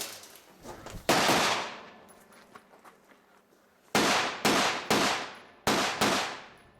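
Semi-automatic rifle fire on a shooting course with steel targets: one sharp report about a second in, then a fast string of five more about three seconds later, each with a ringing, echoing tail.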